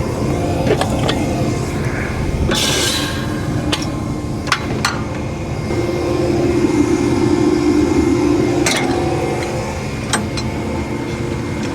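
Metal clanks and clinks of a trailer hitch and its chains being unhooked from a truck, scattered sharp knocks over a steady low hum, with a short hiss a few seconds in.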